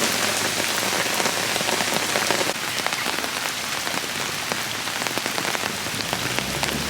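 Heavy rain falling steadily, with many individual drops pattering close to the microphone.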